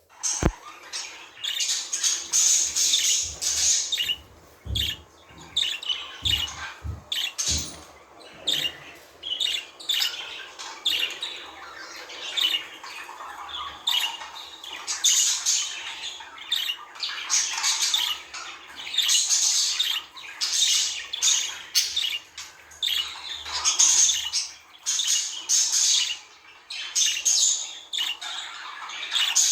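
Budgerigars chattering, with rapid chirps and squawks in quick bursts and short gaps between them.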